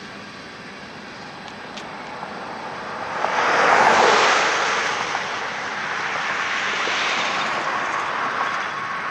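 Loaded coal train cars rolling past: a steady rush of steel wheels on rail. It swells sharply about three seconds in and again, more gently, around seven seconds.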